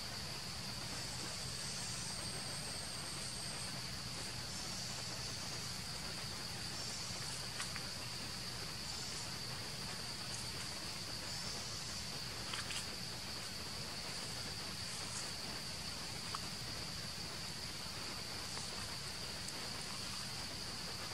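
Steady high-pitched drone of insects, unbroken throughout, with a few faint clicks scattered through it.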